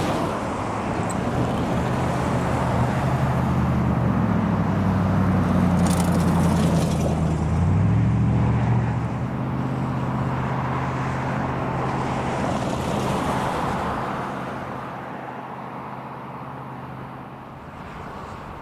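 EMD diesel locomotive engine running as a slow work train moves past, a deep steady hum with track and wheel noise. Its pitch shifts about eight seconds in, and the sound grows quieter over the last few seconds.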